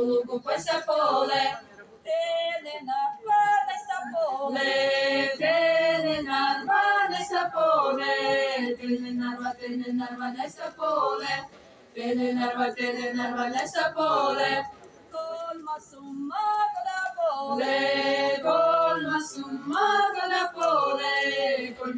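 A small Seto folk ensemble singing a cappella in the leelo style, with a lead singer and the group's voices together, in long sung phrases with short breaks between them.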